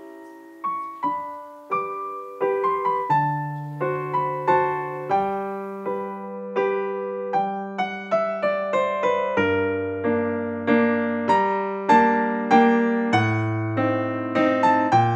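Background piano music: a gentle tune of single struck notes that ring and fade, with low bass notes joining about three seconds in.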